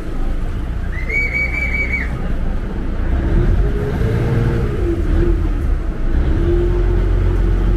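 Boat on a river running with a steady low rumble of engine, wind and water, cut by a single high whistle blast about a second in that lasts about a second. Lower steady tones sound twice in the second half.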